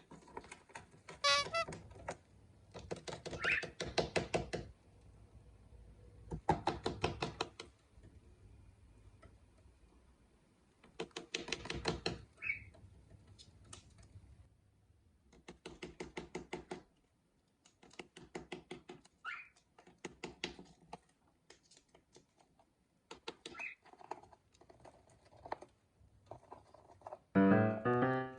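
Cockatiels pecking and chewing with their beaks, in repeated bursts of rapid tapping a second or so long, with a few short rising chirps between. Piano music comes in near the end.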